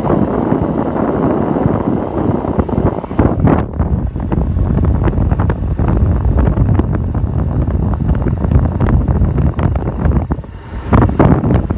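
Wind buffeting the microphone over a steady low rumble, as from a moving vehicle. The hiss thins out abruptly about three and a half seconds in and comes back near the end.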